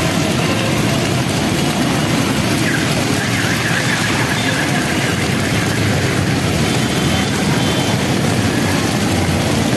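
Steady street traffic: auto-rickshaw, motorcycle and car engines running, and tyres swishing through standing floodwater.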